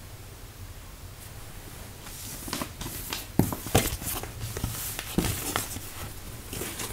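Tarot cards being gathered up off a wooden table by hand: after a couple of quiet seconds, paper cards sliding and rustling, with a few sharp taps as they are swept together and stacked.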